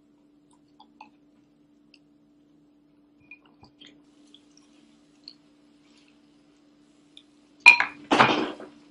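Faint scattered crunches and clicks of dry cereal, then near the end two loud clattering bursts as hands dig into a bowl of cereal, clinking against the bowl. A steady low hum runs underneath.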